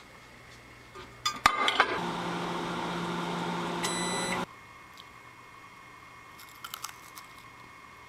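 A microwave oven: a clatter of clicks as the plate goes in and the door and buttons are worked, then the oven running with a steady hum for a couple of seconds and a high electronic beep, all cutting off suddenly. A few faint clicks follow near the end.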